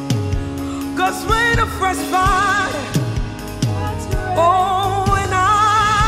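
Live gospel worship song: a woman singing with vibrato into a microphone over a band, with a held low note underneath and deep drum hits about once a second.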